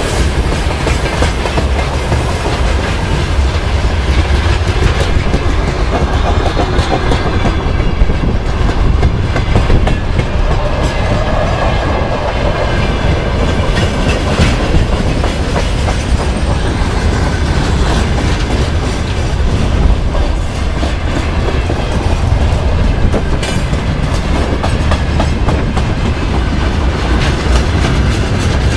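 Freight train of tank cars and open gondola wagons rolling past, steel wheels clattering on the rails over a steady, heavy rumble.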